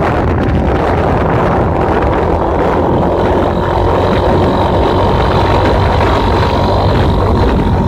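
Motorcycle running steadily at road speed, its engine noise mixed with wind rushing over the microphone; a faint steady whine sits on top.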